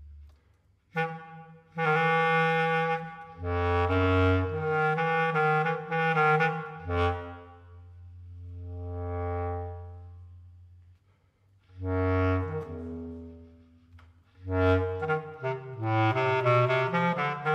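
Bass clarinet playing solo: quick, busy phrases of notes broken by short pauses, with one long note that swells and fades near the middle.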